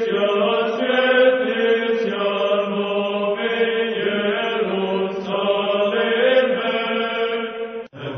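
Orthodox church chant: voices sing a slow melody over a steady held drone note. It breaks off briefly near the end, and a new chanted phrase begins.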